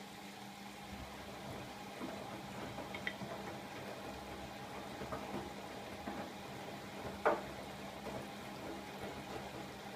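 Siemens iQ700 front-loading washing machine mid-wash: water sloshing in the turning drum over a steady motor hum, with a few light knocks, the sharpest about seven seconds in.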